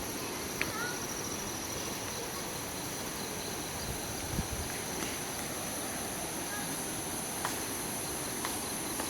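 Insects droning steadily in forest, a constant high-pitched shrill in two bands, over an even background hiss, with a couple of soft low thumps about four seconds in.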